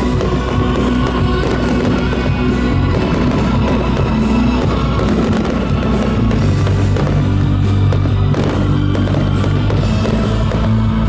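Loud show music with firework shells bursting and crackling over it throughout.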